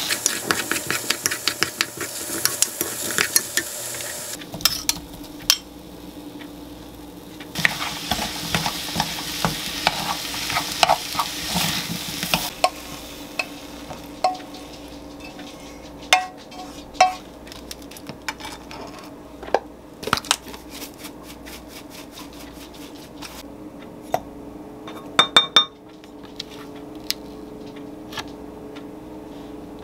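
Tomato and scrambled egg sizzling in a nonstick frying pan while a wooden spoon stirs and taps against the pan, in two spells. The sizzling stops about twelve seconds in, leaving scattered clicks and knocks as the food is scraped from the pan onto a plate, over a steady low hum.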